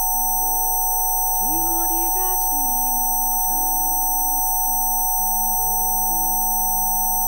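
Several steady pure tones held unchanging at once, some mid-pitched and some very high, laid over soft ambient music whose low notes shift every second or so, with a few gliding notes.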